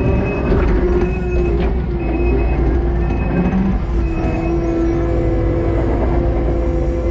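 Kubota SVL 90-2 compact track loader's diesel engine running steadily under working load, with a constant pitched drone. A short high beep repeats about once a second.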